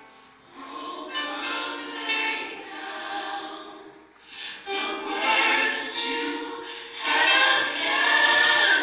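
Gospel choir singing over music, getting louder in the second half with a long held note near the end.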